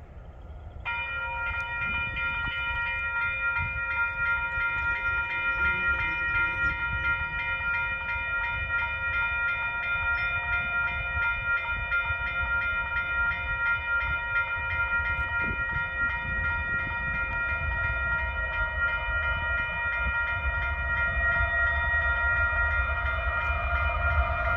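A railroad crossing warning bell starts ringing about a second in and keeps ringing at an even, rapid pace, over the low rumble of an approaching diesel freight train that grows louder toward the end.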